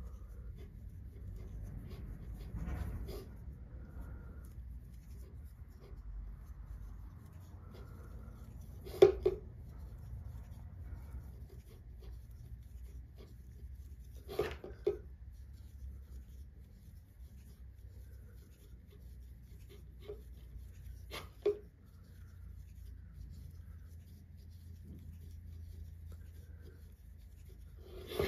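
Soft rustling and scraping of yarn on a small 1.90 mm crochet hook as single crochet stitches are worked, over a faint low hum. A few short sharp clicks or knocks break in, the loudest about nine seconds in.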